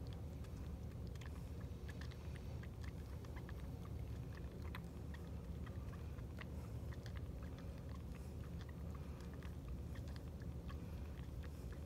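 Young kitten suckling from a nursing bottle: faint, irregular wet clicks and smacks from its mouth on the rubber nipple, over a steady low hum.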